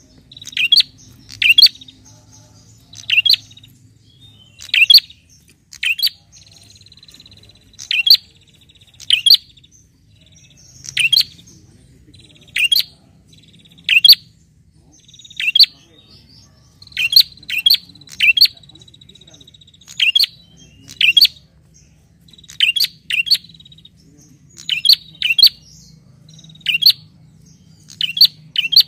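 Caged tailorbird (prenjak) calling loudly: sharp, high chirps repeated about once a second, often in quick pairs. A thin, steady high trill runs between some of the calls.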